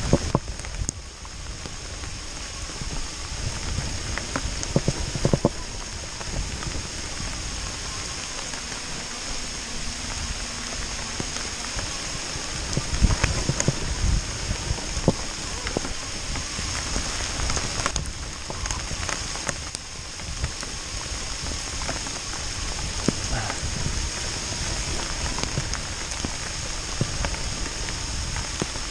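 Rain falling steadily, with scattered sharp ticks of drops striking close by and occasional low rumbles.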